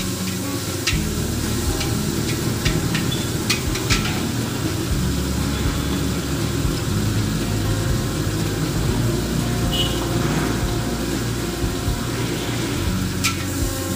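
Gas wok burner running with a steady low rumble under the sizzle of flat rice noodles being stir-fried in a wok, with a few sharp clanks of the spatula against the wok.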